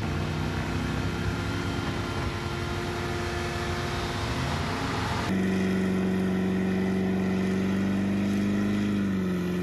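Third-generation Chevrolet Camaro engine held at high revs during a burnout, its rear tyres spinning and smoking. The sound changes abruptly about five seconds in, then the engine holds a steady high note that drops slightly near the end.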